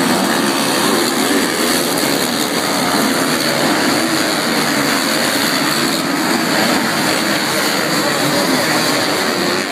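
Motocross bikes' engines running together in a continuous, steady din at racing speed.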